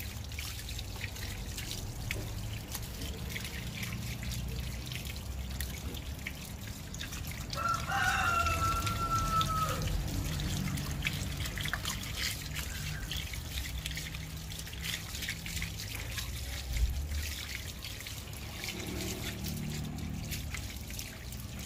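Water from a garden hose splashing and trickling over a wet dog's coat and onto concrete as the dog is bathed. About eight seconds in, a rooster crows in the background, one call of about two seconds.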